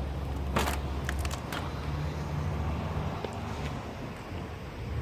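Aerosol spray can giving a short hiss of rust-protective paint about half a second in, then a few brief puffs. A steady low rumble runs underneath.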